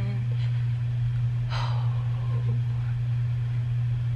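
A steady low hum throughout, with a short breath or sigh about one and a half seconds in.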